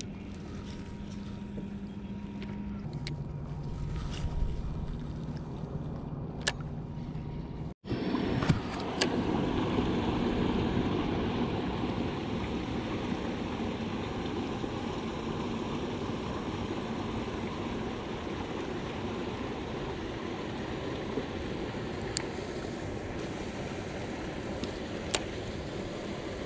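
Choppy river water washing and lapping around a small fishing boat, a steady rushing noise that becomes louder about eight seconds in. A few sharp clicks stand out over it.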